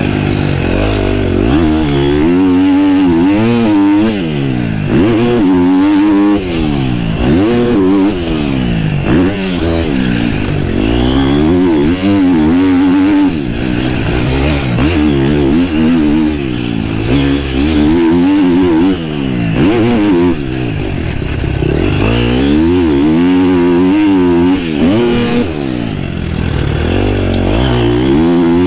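KTM motocross bike's engine, heard up close from the bike, revving up and dropping off over and over as the rider opens and closes the throttle and shifts gears around the track.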